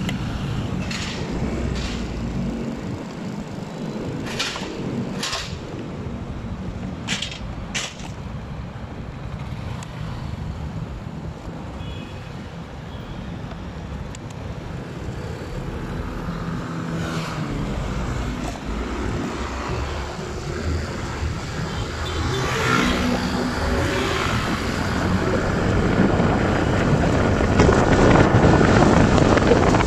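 Vehicle engine and traffic noise during a slow road ride, with a few sharp clicks in the first several seconds. Wind on the microphone builds in the last several seconds as the ride speeds up on the open road.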